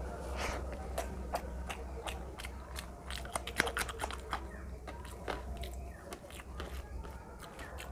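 Close-miked chewing of a mouthful of rice and fish curry eaten by hand, with many quick wet smacks and clicks of lips and fingers, busiest about three to four seconds in.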